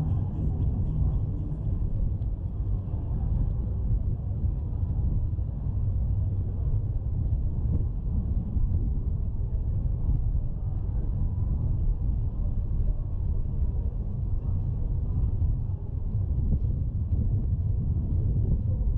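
Steady, deep outdoor rumble with nothing distinct standing out above it.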